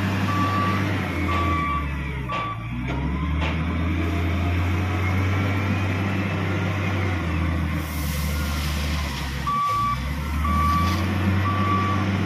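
Wheel loader's diesel engine running and revving as it works, its reversing alarm beeping about once a second at the start and again from about nine and a half seconds in. In between, a load of crushed stone pours from the loader's bucket into the steel body of a dump truck with a rushing hiss.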